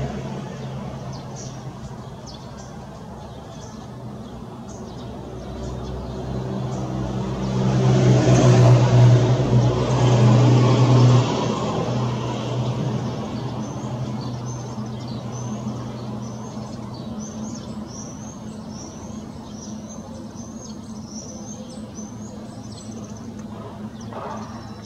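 A motor vehicle passes, its low engine hum swelling to a peak about a third of the way in and then fading away. Through the second half a small bird calls with short, high chirps.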